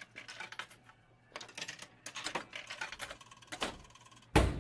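Soda vending machine being worked by hand: a run of quick, irregular clicks and rattles, then a heavy thunk near the end.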